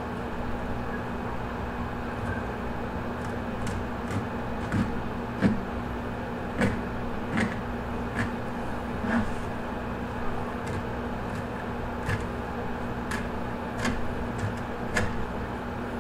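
Small knife and gloved hands working a bass skin loose at the tail on a stainless steel table: scattered light clicks and taps at an irregular pace, over a steady low hum.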